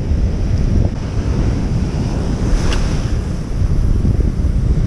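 Wind buffeting the microphone in a loud, ragged low rumble over the rush of surf breaking on rocks. There is a brief click nearly three seconds in.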